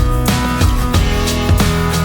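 Background music: guitar with drums, with a steady beat.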